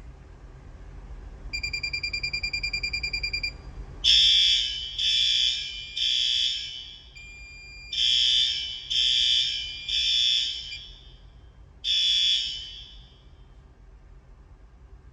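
Fire alarm horns sounding the temporal-three evacuation pattern: two groups of three blasts about a second apart, then a single blast before they stop. A rapidly pulsing high electronic beep comes just before the horns start.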